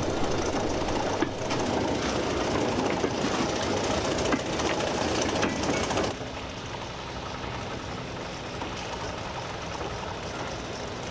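OO gauge model of an LNER Sentinel steam shunter running along the track: the steady whir of its small motor and wheels rolling on the rails, with a few light clicks. The sound drops noticeably about six seconds in.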